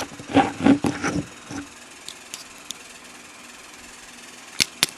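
Small metal lock parts clicking and tapping as a pin-tumbler lock is taken apart and its pins and springs removed: a quick run of clatter in the first second and a half, a few light ticks, then two sharp clicks near the end.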